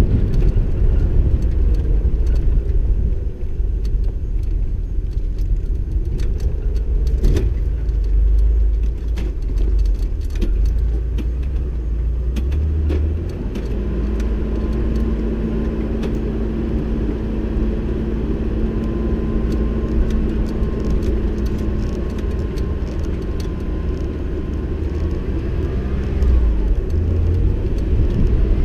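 Off-road vehicle driving over a rough dirt track: a heavy low rumble of engine and tyres, with scattered rattles and knocks. About halfway through, the engine settles into a steady, even note for a while.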